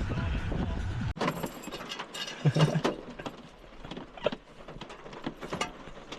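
Wind buffeting the microphone, cut off suddenly about a second in, followed by scattered clicks, knocks and rustling of camping gear being handled.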